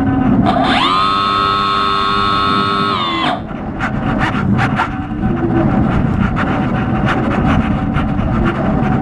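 X6 hexacopter's electric motors and propellers, heard from its onboard camera under a heavy rushing noise with scattered clicks. About half a second in the motors climb to a higher, steady whine, hold it for about two and a half seconds, then drop back down.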